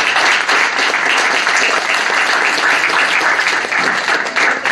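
Audience applause, many hands clapping at once.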